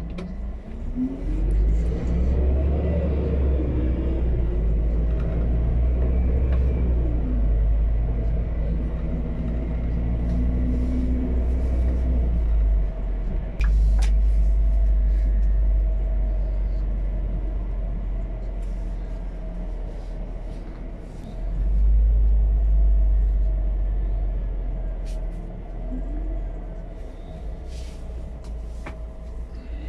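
Scania P280 truck's biogas engine heard from inside the cab, pulling away and accelerating through the gears: a deep running note whose pitch climbs and falls with each shift. A brief dip with a click about halfway marks a gear change, and a second surge of power comes later, with light clicks and rattles from the cab throughout.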